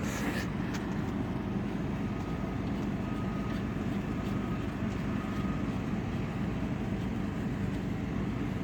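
Husqvarna FS6600D diesel walk-behind concrete/asphalt saw engine idling steadily at low throttle, before the blade is brought up to cutting speed.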